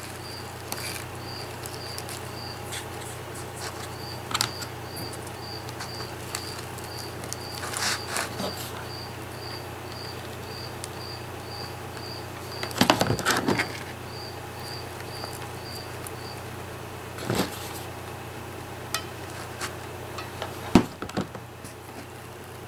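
Hands working on a paper craft piece: scattered taps, knocks and rustles as craft materials and a hot glue gun are handled and pressed into place, the loudest a cluster about halfway through and a sharp knock near the end. Under it a high, even chirp repeats about three times a second, stopping about three quarters of the way through.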